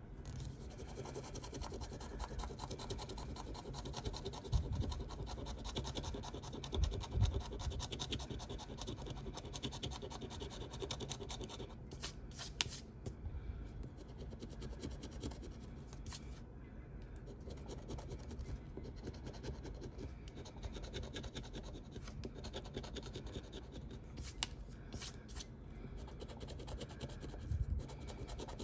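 A scratch-off lottery ticket's coating being scraped off: rapid, continuous scratching strokes across the card, with a few brief pauses.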